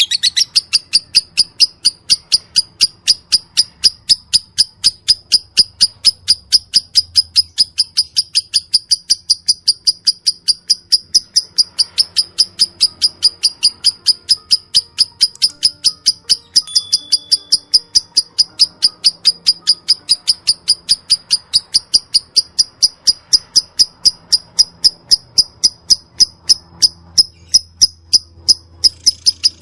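Lovebird making its 'ngetik' (typing) call: a long unbroken run of short, sharp high chirps at about four a second.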